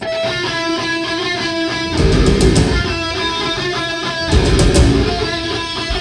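Heavy metal band playing live: a distorted electric guitar riff opens the song, and bass and drums crash in about two seconds in and again past the four-second mark, dropping out between.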